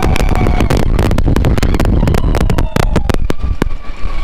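Expedition Everest roller coaster train running fast along its track: a loud, steady rumble with rapid rattling clacks.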